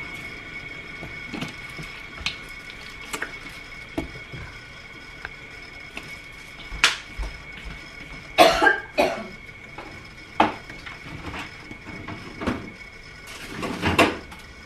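Household handling noises: scattered light knocks and clicks, a loud short cough about eight and a half seconds in, and a refrigerator door being pulled open near the end, over a faint steady high tone.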